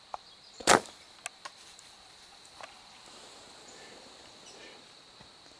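A bow shot at a whitetail doe: one sharp, loud snap of the released bowstring and arrow a little under a second in, followed by a few faint clicks and knocks.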